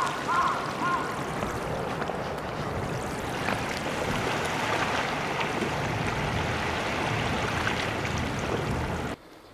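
A steady rushing noise with scattered knocks: wind and handling noise on the microphone of a camcorder carried on the move. It cuts off abruptly near the end.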